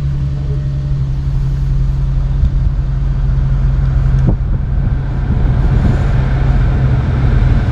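Infiniti Q50 idling, heard from inside the cabin, with the air-conditioning blower fan running. There is a click about four seconds in, and the blower's rush grows after it.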